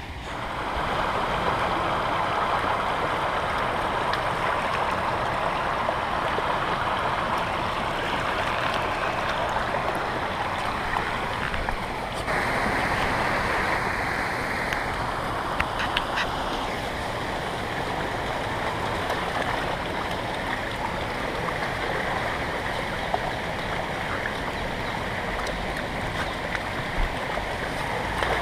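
Floodwater rushing steadily over a flooded path, a continuous even wash of flowing water. Its tone turns a little brighter about twelve seconds in.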